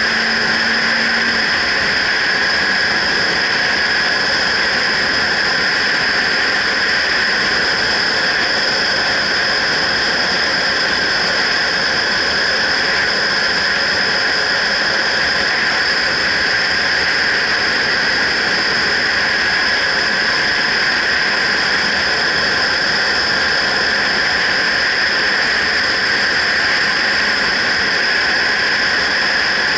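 Steady wind rush and road noise on a helmet-mounted action camera on a motorcycle cruising at constant speed, a loud even hiss with no rise or fall in pitch.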